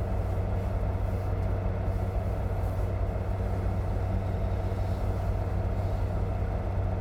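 Semi-truck's diesel engine running steadily, heard from inside the cab as an even low drone.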